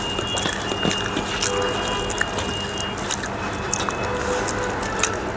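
Fingers mixing rice with soft, mashed lentil-fritter curry on a steel plate: wet squishing with many light clicks against the metal.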